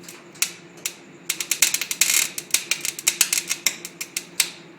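Electric welding arc crackling and popping in irregular sharp snaps, densest about two seconds in, throwing off hot spatter. The crackling stops shortly before the end.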